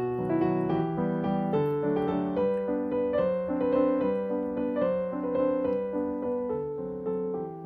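Background piano music playing a slow melody of held notes.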